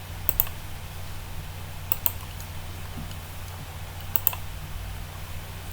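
Computer keyboard keys tapped in three short clusters of two or three clicks each, over a steady low hum.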